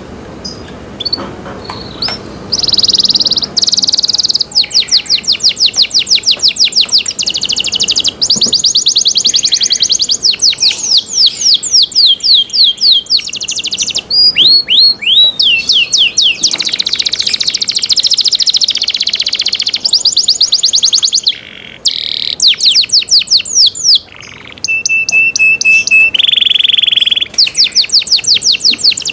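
Domestic canary singing: a long song of fast, high trills and rolls made of rapidly repeated notes, broken by short pauses, starting a couple of seconds in. Near the end a run of flat, steady notes is followed by a dense burst of song.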